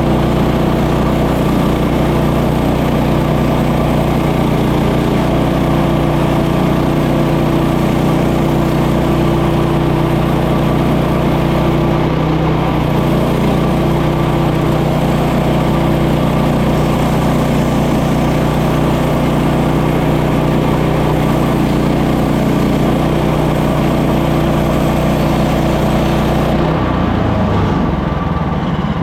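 Woodland Mills HM130 Max portable bandsaw mill running steadily under its gas engine at a constant pitch. About 27 seconds in, the high hiss drops away and the engine note shifts lower.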